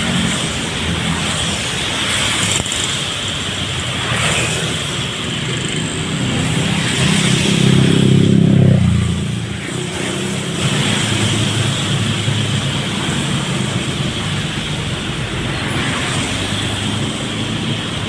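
Road traffic in the rain: a steady hiss of rain and tyres on wet road. A vehicle engine passes close, loudest about halfway through, and drops away suddenly.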